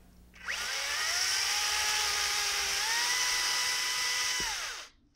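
Makita XCU03 36-volt cordless electric chainsaw spinning up with a rising whine and cutting through a juniper limb for about four seconds, the motor pitch stepping up a little partway through, then winding down and stopping near the end.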